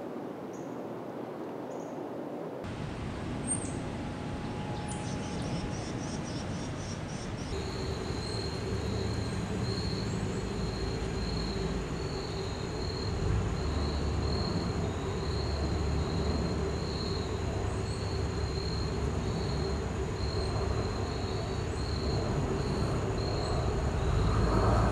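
Insects chirping in a pulsing high note about once a second, with a steady thin whine above it, over a low steady rumble that grows louder. The sound changes abruptly twice in the first eight seconds.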